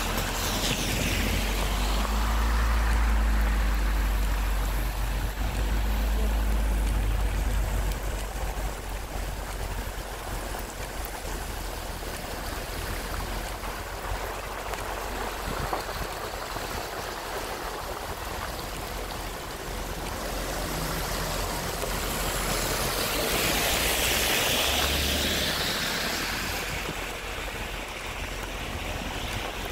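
Steady hiss of tyres on a rain-soaked road over a low rumble, with oncoming vehicles swishing past on the wet asphalt: one at the start and a louder one that swells and fades about three-quarters of the way through.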